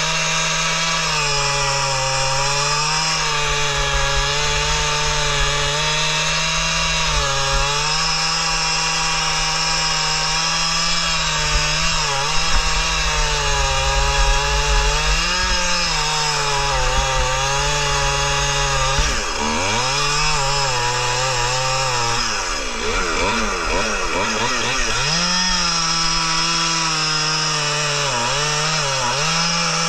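Two-stroke gas chainsaw at full throttle, cross-cutting (bucking) an oak log. The engine pitch wavers as the chain loads up in the cut, and about two-thirds of the way in it dips and surges hard before steadying again.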